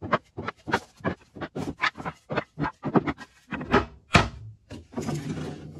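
Wooden boards knocking and clattering as they are laid into a workbench's bottom shelf frame, in a quick run of knocks, with scraping near the end.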